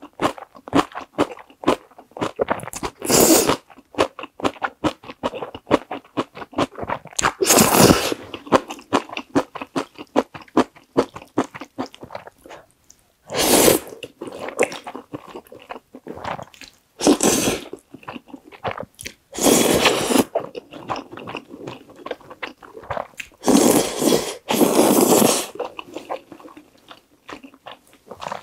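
Close-miked wet chewing of creamy Carbo Buldak fried noodles, full of small sticky mouth clicks. Loud noodle slurps come every few seconds, about seven in all.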